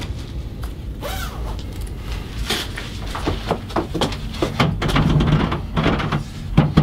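Irregular knocks and clatters with a low rumble, and a short creak about a second in.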